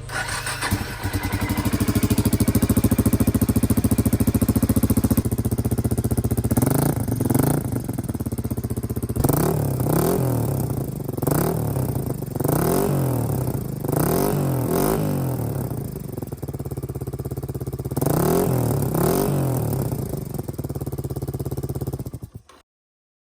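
Suzuki DR250 SHC's single-cylinder four-stroke engine running through a SuperTrapp muffler, first at a steady speed and then revved up and down in a string of throttle blips. It cuts off suddenly near the end.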